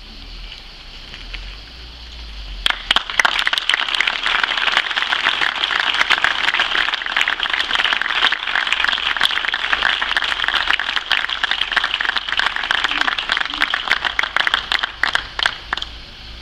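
Crowd applauding. The clapping swells up about three seconds in, keeps up steadily and dies away just before the end.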